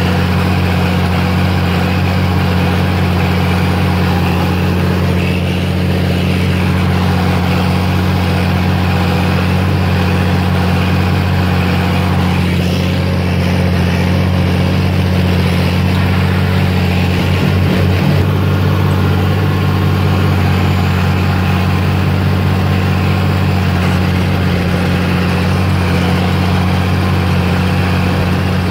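Oliver 1855's turbocharged six-cylinder diesel engine running steadily under load while pulling a four-bottom moldboard plow, with a brief flutter in the engine note about 17 seconds in.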